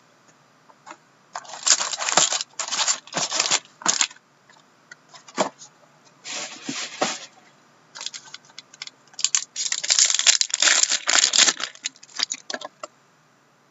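Hockey card packs being torn open by hand, with wrapper crinkling and cards being handled, in several bursts of tearing and rustling, the longest and loudest from about eight to thirteen seconds in.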